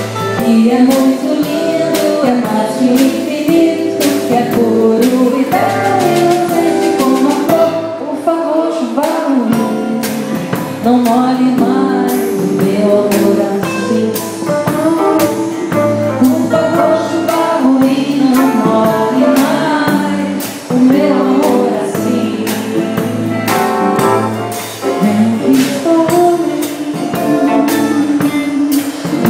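Live Brazilian song with a woman singing over acoustic guitar, upright bass and keyboard, carried by a steady rhythm.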